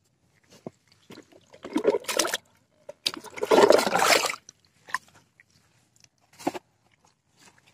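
Water splashing and rushing as a plastic bucket is dipped into the lake and filled, in two bursts about two and three to four seconds in, the second the louder and longer, with a few short splashes later on.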